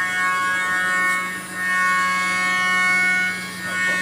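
CNC milling machine running a cutting program: a steady high whine of several tones over a low hum, swelling and easing a few times as the cut goes on.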